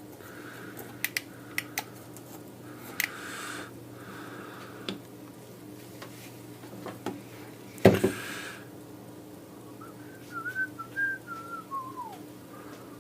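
A person softly whistling a few wavering notes that slide down in pitch near the end. Small clicks and taps of tools being handled on a workbench, with one louder knock about eight seconds in.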